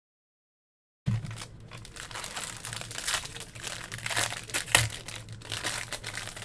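Black foil wrapper of a Panini Encased trading-card pack crinkling as it is squeezed and worked open by hand, starting after about a second of silence, with two sharper crackles near the end.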